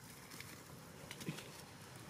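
Faint scuffs and a few light taps from young macaques scrambling and wrestling over stone and leaf litter, with one short knock just past the middle.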